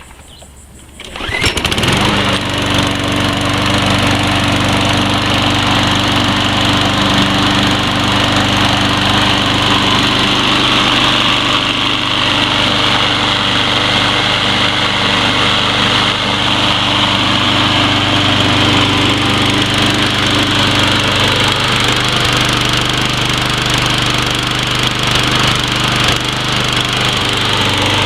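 Troy-Bilt TB230 21-inch walk-behind gas lawn mower engine catching about a second and a half in, then running steadily at a constant speed.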